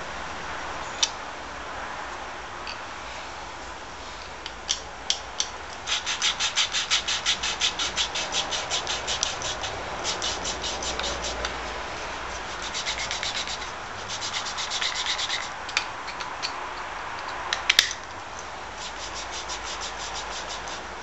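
A valve of a Wolseley WD2 stationary engine being lapped into its seat with grinding compound: a screwdriver in the valve-head slot is twisted back and forth, making rhythmic gritty rubbing strokes, about three or four a second, in several bouts. A few sharp clicks fall between the bouts. The lapping is meant to seat valves that were a bad fit, so the engine will hold compression.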